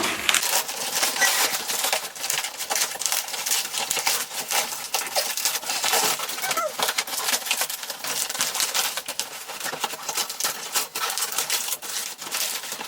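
Plastic parcel packaging being torn and crinkled by hand, a continuous run of crackles and rips.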